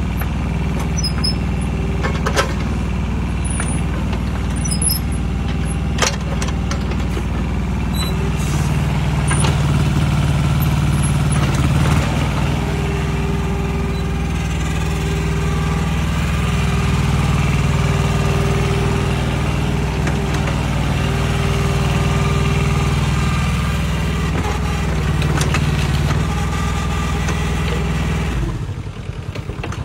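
Small diesel engine of an old Hitachi mini excavator running while its boom and bucket are worked, getting louder in stretches under hydraulic load, with a steady whine coming and going in the middle. Near the end the engine note drops to a quieter, slower idle.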